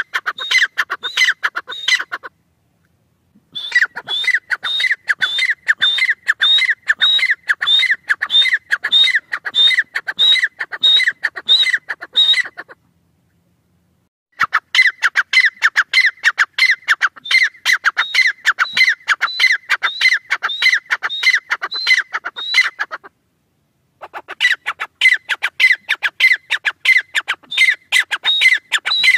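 Grey francolin calling: a long run of fast, shrill, repeated notes that breaks off briefly three times and starts again.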